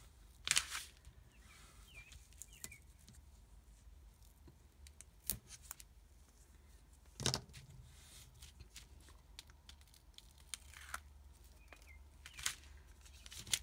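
Double-sided tape being pulled from its roll and pressed along the edge of a plastic page protector: a handful of short ripping and peeling sounds with light plastic crinkles and taps between them.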